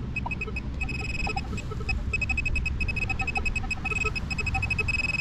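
Handheld metal detector pinpointer beeping with a high pitched tone, in short rapid pulses at first and nearly unbroken from about two seconds in, as it sits right over the buried target. Low scraping and handling noise runs underneath.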